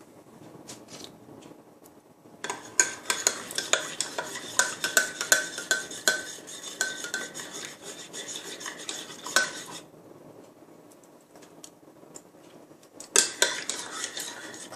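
A spoon stirring milk and honey in a glass, clinking quickly and repeatedly against the sides with a light ring. It starts a couple of seconds in, stops for about three seconds, then starts again near the end.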